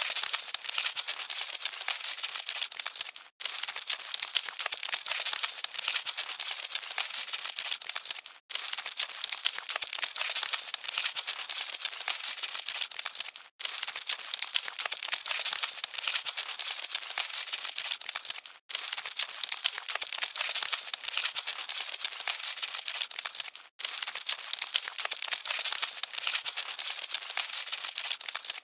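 Dense, dry crackling and rustling of scuttling cockroaches, with many tiny clicks. It is a short stretch of about five seconds looped over and over, each repeat broken by a brief gap.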